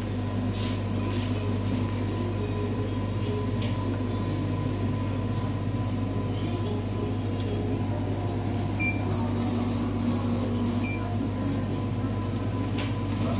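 Steady low electrical hum of a Cornley K-Lite 3 electrolyte analyzer running, with a faint steady tone above it. A few faint short ticks and a brief hiss come about two-thirds of the way in.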